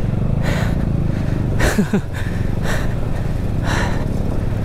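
KTM motorcycle engine running at low speed on a rough rocky track, with the rider's hard breathing puffing about once a second.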